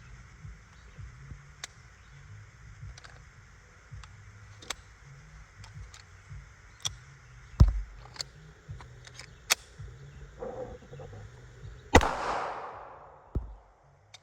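Pistol shots at a shooting range: two loud shots, about seven and a half and twelve seconds in, the second ringing out with a long echo, among fainter scattered cracks.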